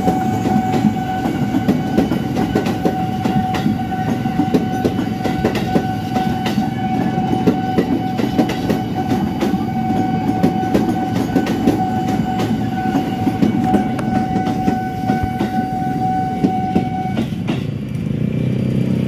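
Former JR East 205 series electric commuter train passing close by: a dense run of rapid wheel clicks over the rail joints on top of the cars' rumble, with a steady high whine that stops near the end.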